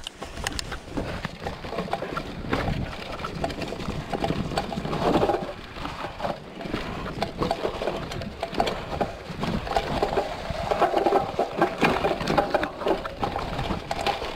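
Mountain bike riding down a rocky, leaf-covered forest trail: tyres rolling over leaves and stones and the bike rattling over the bumps, an uneven noise full of small knocks.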